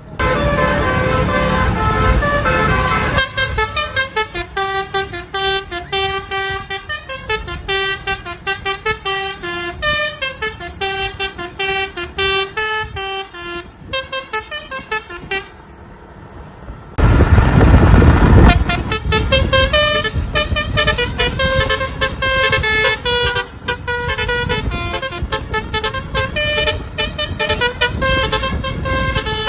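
Tour buses' basuri telolet roof horns playing a fast melody of quickly changing notes, two buses' horns sounding together. The melody pauses briefly past the halfway mark, where a loud rush of noise cuts in, then the horns take up the tune again.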